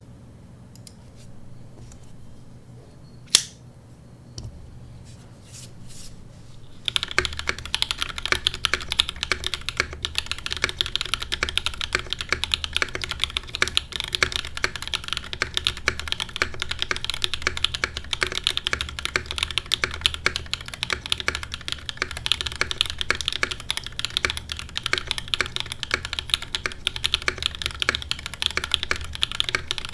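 Iron160 gasket-mount mechanical keyboard with lubed SOTC switches, an aluminum plate and GMK keycaps, typed on fast and continuously from about seven seconds in. Before that there are only a few scattered clicks, one of them sharp and loud.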